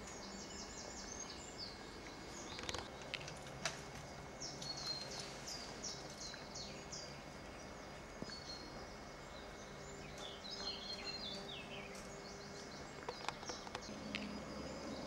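Small songbirds singing, short repeated high chirps and quick falling notes, over a faint steady low hum.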